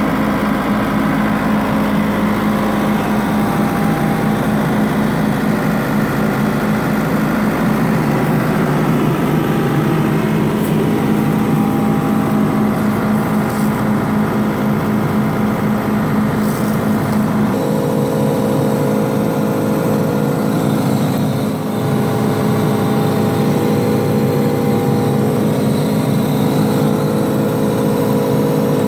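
John Deere 75D excavator's diesel engine idling steadily, its tone shifting a little about two-thirds of the way through.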